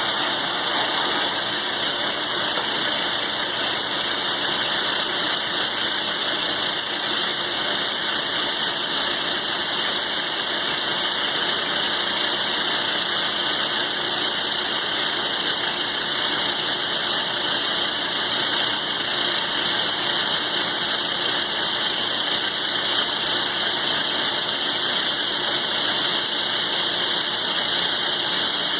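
Milling machine taking a slow cut through thick steel with a roughing end mill: a steady, high-pitched machining noise from the cutter and spindle, with no change in pace.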